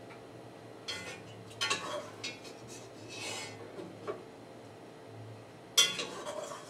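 Utensils scraping and clinking against a metal cooking pot as boiled jicama fries are lifted out of the water: several short scrapes and knocks, the loudest clatter about six seconds in, over a steady low hum.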